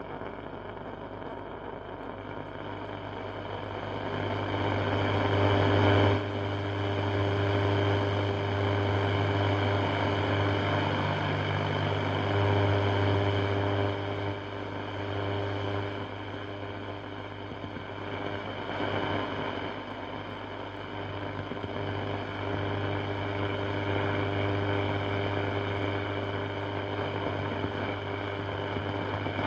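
A 1939 Mende Super MS216-W tube radio tuned between stations, giving out static over a steady low hum, with whistling tones fading in and out as the dial moves. The noise swells about four seconds in and stays loud.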